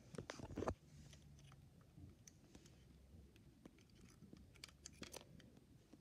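Faint clicks and taps as a toy cockroach is handled and set into a model car, after a short louder clatter about half a second in.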